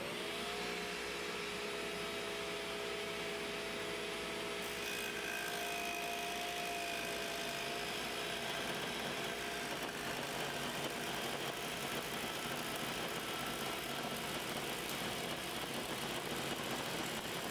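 Bosch 4100XC-10 job-site table saw with a 3/4-inch dado stack cutting a dado through a pressure-treated post. The motor and blades run with a steady whine under an even load.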